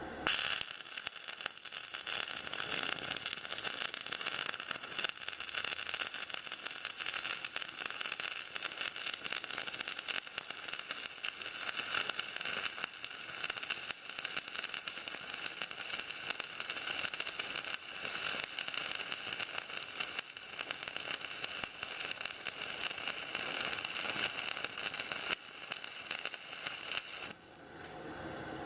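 Electric arc welding: the arc crackles and hisses steadily while a weld bead is laid. It strikes suddenly just after the start and breaks off near the end.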